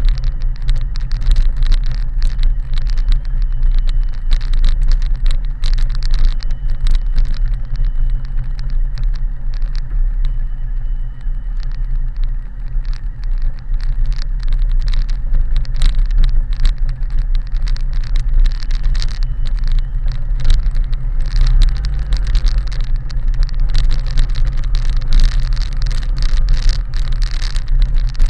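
BMW K1100LT motorcycle's inline-four engine running steadily at low speed, with many short knocks and rattles as it rides over the cobbled street surface.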